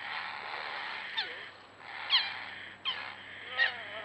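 Small dog yelping in distress while caught in an alligator's jaws: four short, high yelps, each falling sharply in pitch, about a second apart. Water splashes in the first second and a half.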